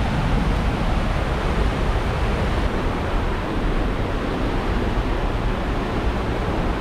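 Steady rushing of a large waterfall: a constant, even wash of noise with a strong low rumble.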